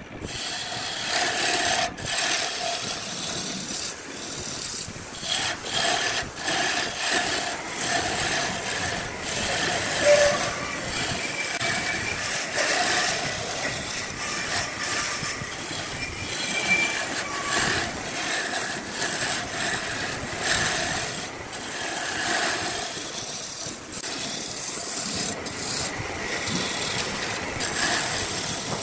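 Turning tool cutting into a spinning wooden blank on a wood lathe: a continuous scraping, rasping cut whose loudness rises and falls as the tool is worked along the piece.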